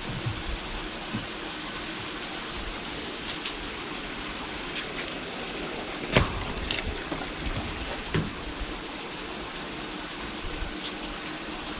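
Steady rushing background noise, with scattered light knocks and scuffles from two kittens playing on a concrete floor among a ball and plastic tubes. A sharper knock comes about six seconds in.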